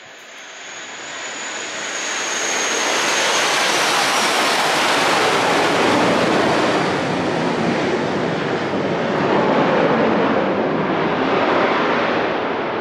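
A train passing close by. Its noise swells over the first few seconds, stays loud and eases a little near the end, with a thin high whine that fades early on.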